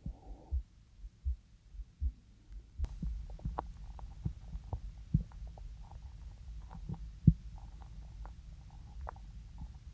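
A human heartbeat picked up close against the body: low, regular thumps at about 80 beats a minute. About three seconds in comes a sharp click, after which the thumps turn irregular and small crackling, gurgling sounds join in.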